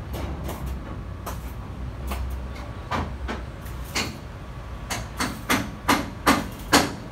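Irregular hammer blows on metal, about a dozen strikes that come closer together from about five seconds in, over a low steady rumble of workshop noise.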